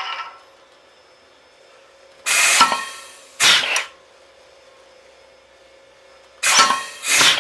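HR 250 rivet squeezer cycling twice as it starts curling a rivet during setup. Each stroke is a pair of sharp hissing bursts, about a second long in all, over a faint steady hum.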